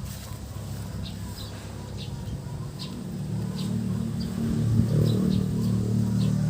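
Short high bird chirps repeating again and again over a loud low steady hum that grows louder about four seconds in.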